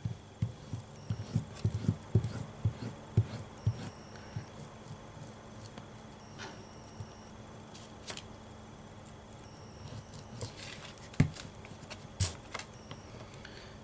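Glue stick rubbed quickly back and forth over card on a cutting mat, giving a quick irregular run of soft low thumps for the first few seconds. A couple of sharp taps follow near the end as the paper is handled.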